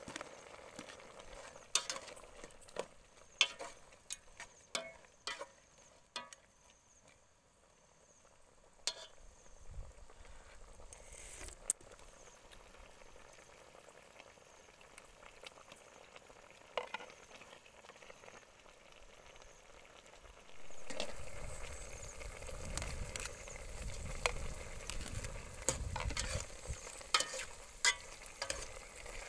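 Soup simmering in an aluminium pot on a portable gas stove, with scattered sharp clinks of a metal ladle against the pot as ingredients go in. From about two-thirds of the way in, a low rumble sets in and the clinking and scraping come thicker as the pot is stirred.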